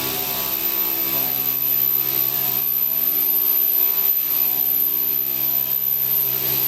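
EVERISING P-230B metal-cutting circular sawing machine running: a steady mechanical hum with a thin, very high whine held above it.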